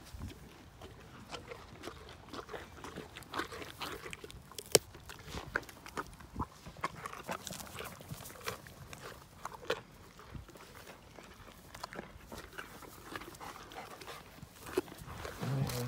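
Dogs crunching carrots: irregular sharp crunches and clicks of chewing, the loudest about five seconds in.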